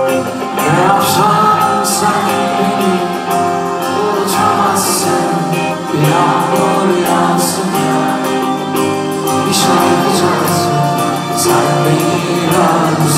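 Live rock band heard from the audience in a concert hall: a male singer over electric guitars, bass and drums with steady cymbal strokes.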